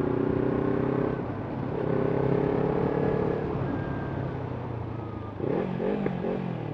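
Kawasaki Ninja 300's parallel-twin engine through an Arrow exhaust with the dB killer fitted, running at steady riding revs. It eases off briefly about a second in, holds steady again, then goes up and down in pitch a few times near the end.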